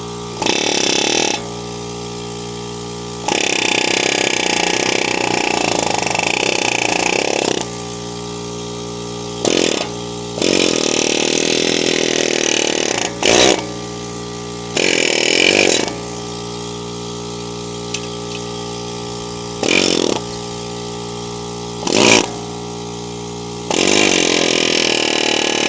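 Pneumatic air hammer with a flat chisel bit chattering in bursts against a seized, chewed-up fastener on the front wheel hub, cutting grooves in it to work it loose. About nine bursts of rapid hammering, from a fraction of a second to about four seconds long, the longest a few seconds in.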